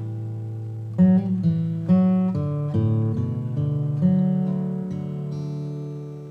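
Background music: acoustic guitar strumming and picking chords, with a last chord about two-thirds through left to ring and fade.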